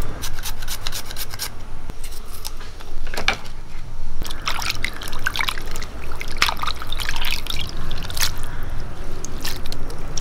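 Raw chicken pieces being washed and squeezed by hand in water in a clay pot: wet squelching and dripping. A few sharp knife clicks from cutting coconut pieces come in the first couple of seconds.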